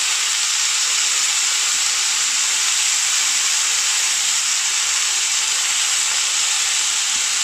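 Chicken and onion skewers sizzling steadily in a hot ridged grill pan as they are pressed down with tongs.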